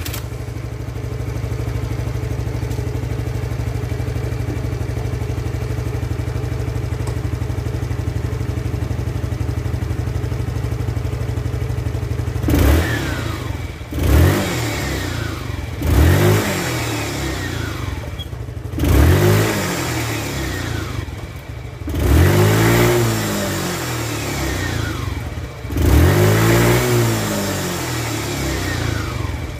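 Suzuki Nex scooter's single-cylinder four-stroke engine idling steadily, then blipped about six times from roughly halfway through, each rev rising and falling in pitch. This is a test run of the CVT after its drive belt was refitted.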